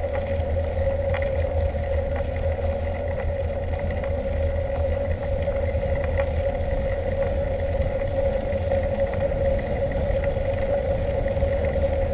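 Mountain bike rolling on asphalt, heard through its handlebar-mounted camera: a steady hum of tyres and moving air over a low rumble, with faint scattered rattling clicks from the bike.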